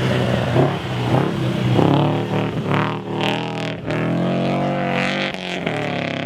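Rally car engine revving hard under acceleration, its pitch climbing, dropping at a gear change, then climbing again.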